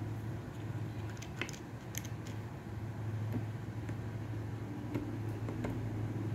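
A few light metallic clicks as a 15-shot .22 Magnum revolver is handled with its cylinder swung open, over a steady low hum.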